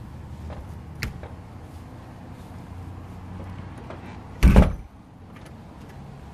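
A single short, loud thump about four and a half seconds in, with a faint click about a second in, over a low steady rumble.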